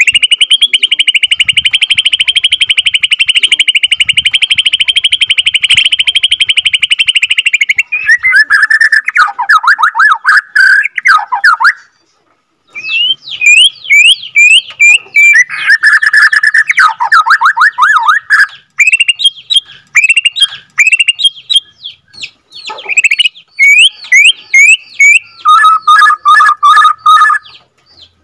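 White-rumped shama (Bornean murai batu) singing. It opens with a long rapid roll held steady for about eight seconds, the extended 'ngerol' valued in song shamas. Then come fast falling phrases, a brief pause, and a run of quick rising whistles mixed with lower trills.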